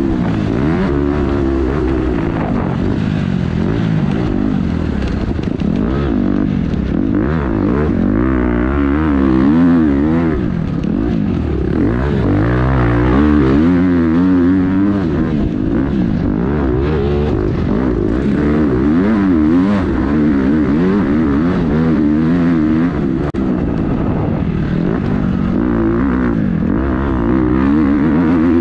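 Motocross bike's engine heard from on board, revving up and down over and over as the rider accelerates, shifts and rolls off around the track.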